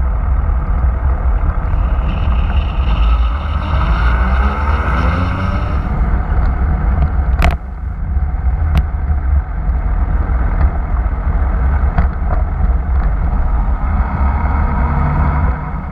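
Motorcycle on the move, heard through a bike-mounted camera: heavy wind rumble on the microphone over the engine, whose pitch rises as it accelerates a few seconds in. About halfway there is a sudden cut, and the engine then runs at low speed with the wind rumble continuing.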